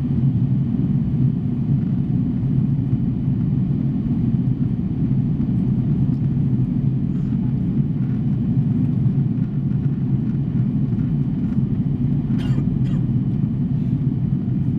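Steady low roar inside the cabin of an Airbus A340-600 climbing after takeoff: its four Rolls-Royce Trent 500 engines at climb power, mixed with the rush of air past the fuselage. Two faint clicks come near the end.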